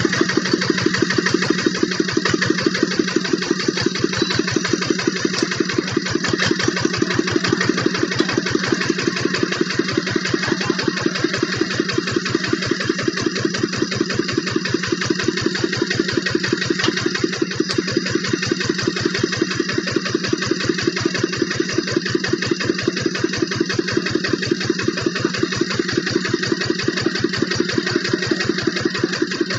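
Single-cylinder diesel engine of a two-wheel walking tractor running steadily with a rapid, even thudding beat, the tractor bogged in mud.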